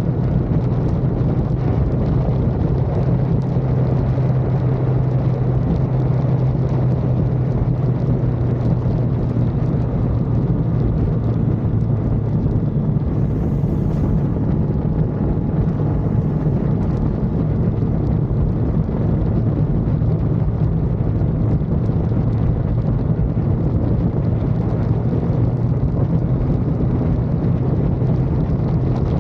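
Car engine running steadily at speed, a constant low drone under heavy wet-track tyre and wind noise.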